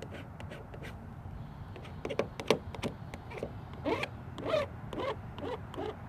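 Short rasping strokes of a vinyl decal being worked onto a truck door, coming thicker and louder from about two seconds in.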